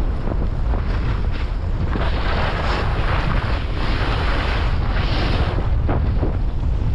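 Wind buffeting a GoPro's microphone as a skier goes downhill, a steady low rumble, with the skis hissing and scraping over the snow, louder for a few seconds in the middle.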